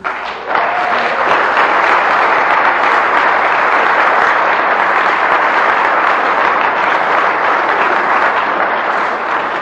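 Large audience applauding, a dense steady clapping that starts suddenly and eases off slightly near the end.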